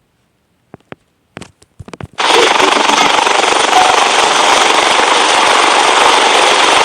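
A few sharp clicks out of silence, then, about two seconds in, a loud, harsh, continuous rattling noise starts abruptly.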